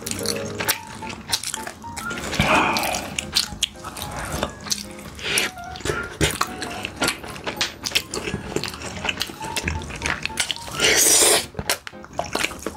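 Close-miked eating, with chewing and many sharp clicks of utensils against dishes. There are two louder rushes of noise, one about two and a half seconds in and one near the end. Light background music plays underneath.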